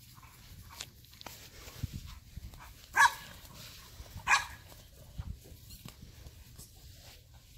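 A dog barking twice, two short sharp barks about a second apart, roughly three seconds in.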